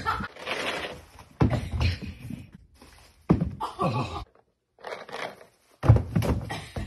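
Stacked toilet paper rolls knocked over by a cat, thudding and tumbling onto a wooden floor, in several short bursts with pauses between. The loudest tumble comes about six seconds in.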